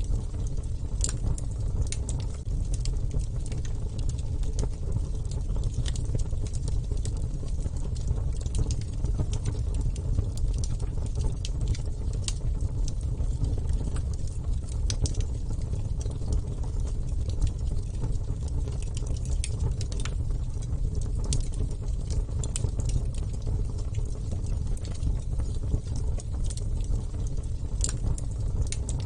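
Wood fire crackling, with irregular sharp pops and snaps scattered over a steady low rumble of the burning.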